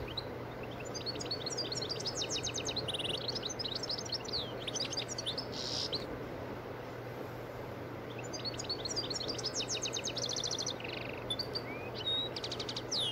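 A small bird chirping and trilling in two bouts of quick, high-pitched phrases, over a steady low hum.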